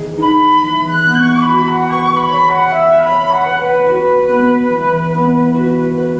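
Flute and harp playing together: the flute carries a melody of held notes, changing about every half second, over a sustained low harp accompaniment.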